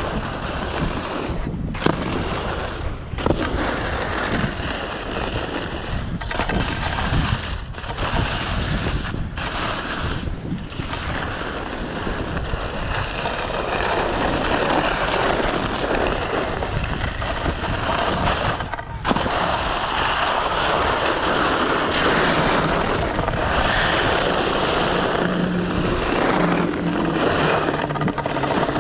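Fischer skis sliding and scraping over packed snow on a downhill run, mixed with wind on the microphone. The noise breaks off briefly several times and grows a little louder about halfway through.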